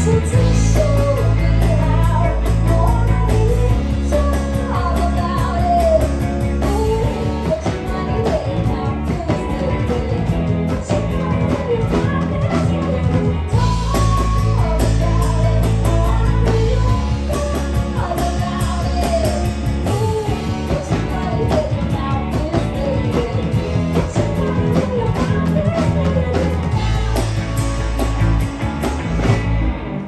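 Live rock band playing a song: a woman's lead vocal over two electric guitars, electric bass and a drum kit, with the bass notes changing every few seconds.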